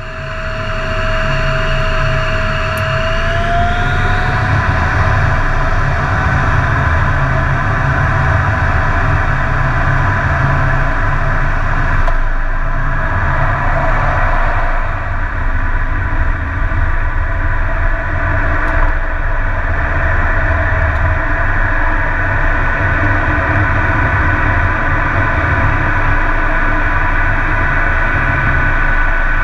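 An F-16's single jet engine heard from inside the cockpit: a steady low rumble with a turbine whine that rises in pitch about three to four seconds in as power comes up, then holds steady.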